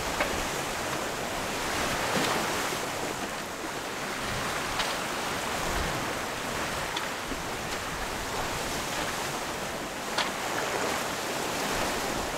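Water rushing and splashing along the hulls of a Lagoon 42 sailing catamaran under way, with wind on the microphone.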